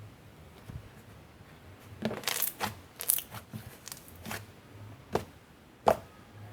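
Icy cloud slime being stretched and squished close to a microphone, giving off crackling, sizzling pops: a cluster about two to four seconds in, then two single sharp pops, the last and loudest near the end.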